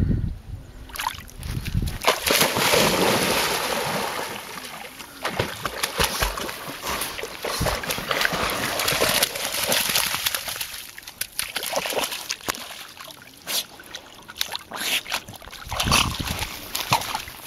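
A Spanish water dog splashing and sloshing through shallow reservoir water, in uneven bursts. It is quieter for a few seconds, then splashes heavily near the end as it wades out carrying a branch.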